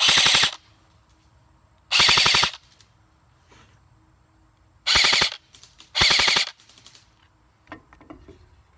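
King Arms M4A1 airsoft electric gun (AEG), on a 7.4 V LiPo, firing four short full-auto bursts of about half a second each, its gearbox cycling in a fast even buzz of shots. The last two bursts come about a second apart.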